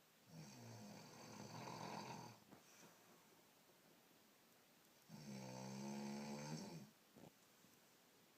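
A person snoring: two drawn-out snores about five seconds apart, each lasting about two seconds.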